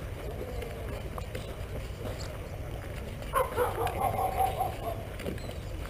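A goat bleating: one long, wavering call about halfway through, over a steady low rumble.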